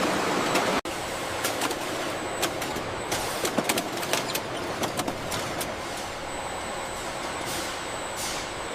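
Factory machinery running: a steady mechanical noise with frequent sharp clicks and clanks and a faint high whine, with an abrupt cut about a second in.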